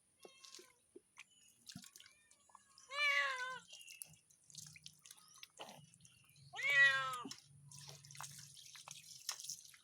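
A domestic cat meowing twice, each cry about half a second long and falling in pitch at the end, with faint drips and small ticks of water between the cries.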